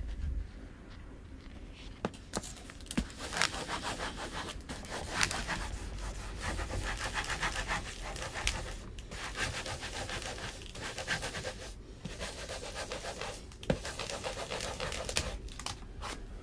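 Baren rubbed in rapid back-and-forth strokes over the back of paper laid on an inked wooden printing block, a steady scratchy rubbing that breaks off briefly a few times. This is the hand-printing stage of a Japanese woodblock print, pressing the colour from the block into the paper.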